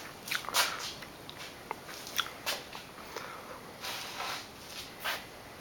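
Irregular crunching and clicking, with short sharp clicks scattered unevenly through.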